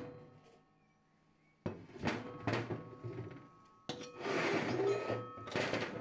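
Metal clanking with a ringing tone: a sharp knock about one and a half seconds in and another about four seconds in, each leaving a ringing note, with rougher rattling and knocking between and after them.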